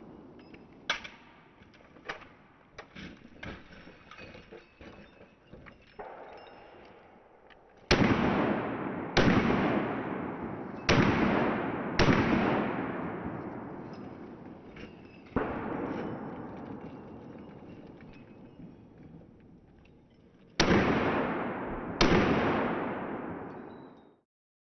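Pistol shots during a match stage: six loud shots in two groups, four between about 8 and 12 seconds and two more near the end, plus a softer one in between, each followed by a long echoing tail. Quieter pops are heard in the first few seconds, and the sound cuts off abruptly near the end.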